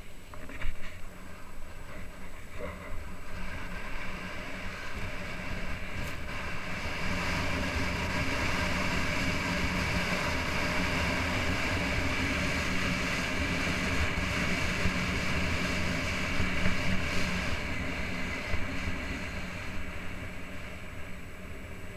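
Skis sliding down a groomed piste: a steady hiss and scrape of packed snow under the skis mixed with wind rushing over the microphone, building a few seconds in and easing off near the end.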